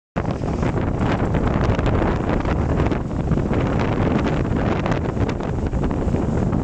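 Strong wind buffeting the microphone at the bow of a sailing yacht making over 9 knots, with the rush and splash of the hull cutting through choppy water beneath it.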